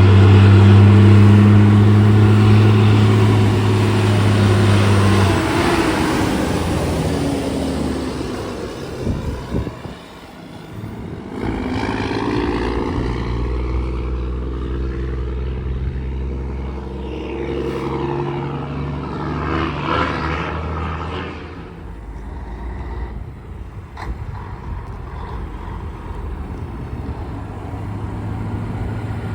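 Road traffic, mostly heavy trucks, passing close by with engines running. A loud, steady engine hum fades after about five seconds. Another vehicle passes between about twelve and twenty-one seconds in, its pitch dropping as it goes by, and a lower engine hum carries on to the end.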